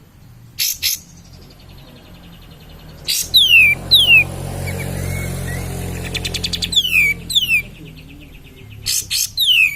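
Kapas tembak, a bulbul, singing loud, sharp downward-sliding whistles in small groups, with short rattling chatter notes between them.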